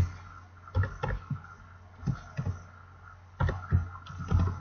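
Typing on a computer keyboard: irregular, sharp key clicks in small groups as a reference number is entered.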